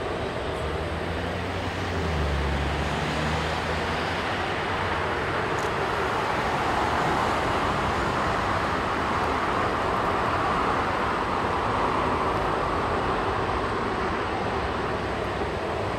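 Boeing 787-10 jet engines at takeoff thrust: a steady rushing jet noise as the airliner rolls down the runway, lifts off and climbs away. A low hum sits under it in the first few seconds.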